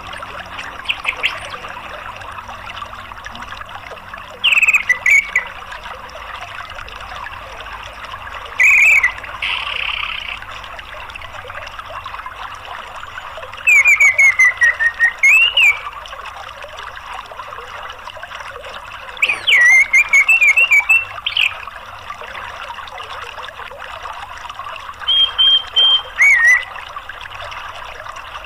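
Orange-headed thrush calling in short bouts of chirps and rising and falling whistles, about six bouts a few seconds apart, over the steady rush of flowing stream water.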